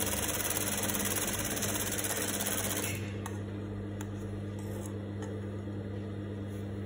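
Juki industrial sewing machine stitching at speed for about three seconds, then stopping at the end of the seam. The motor hum carries on afterwards, with a few faint clicks as the fabric is handled.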